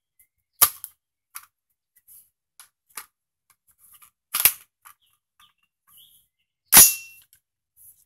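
AR-15 rifle being handled after its bolt locked back: a string of sharp metallic clicks and clacks, typical of a magazine change and the bolt being released. The loudest clack comes near the end and is followed by a brief metallic ring.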